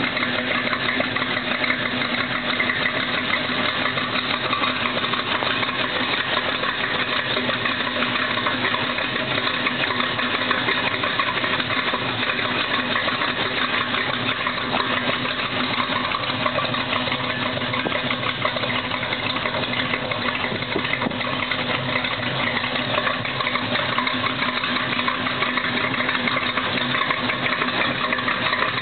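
1965 GMC's crate 350 small-block V8, fitted with a street cam and dual Dynomax exhaust, idling steadily through the exhaust.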